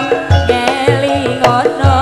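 Live Javanese campursari music: kendang hand drums strike deep strokes about twice a second under a wavering melody line with vibrato and steady pitched accompaniment.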